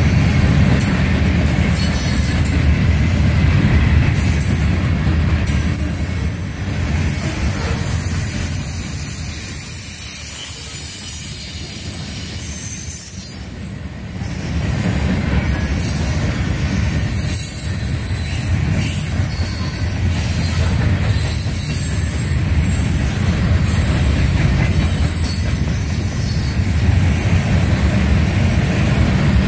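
Freight train of covered hopper cars rolling past close by: a steady low rumble of steel wheels on the rails, with a high-pitched wheel squeal over it. The loudness dips briefly about halfway through.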